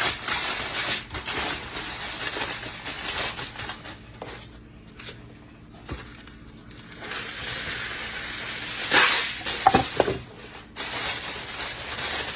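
Aluminium foil crinkling and rustling as it is pulled over and pressed around a baking dish to cover it, with a quieter pause in the middle and the loudest crackles near the end.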